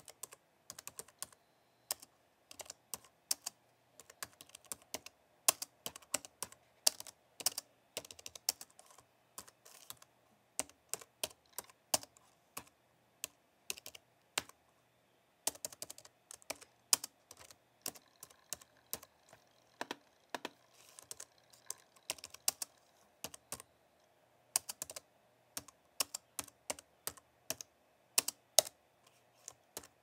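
Typing on a slim, low-profile white computer keyboard: quick soft key clicks in uneven bursts, with short pauses between phrases and a longer pause about halfway through.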